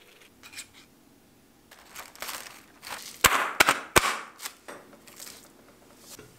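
Plastic cling wrap crinkling as it is stretched over a glass food container, then three sharp pops as holes are poked through the taut wrap.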